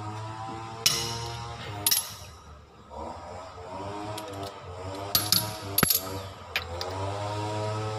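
Sharp metal clinks of a socket wrench on a car's wheel nuts as the nuts are loosened: a clink about a second in, another just before two seconds, and a cluster of clinks between five and seven seconds. Background music and a steady low hum run underneath.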